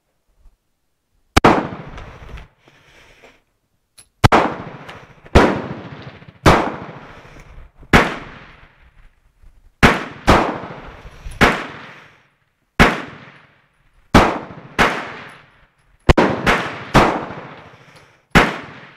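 Star BM 9mm Luger pistol fired in a steady string of about fifteen shots, roughly one a second, each a sharp crack with a short ringing tail, emptying the magazine.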